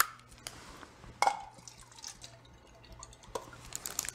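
A drink poured from a plastic bottle into a small plastic cup, with sharp clicks from handling the bottle and cap, the loudest at the start and about a second in.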